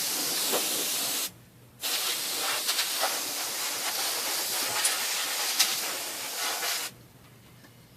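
Compressed air blown over the open laptop's internals to clear dust: a hissing blast of about a second and a half, a brief pause, then a long blast of about five seconds.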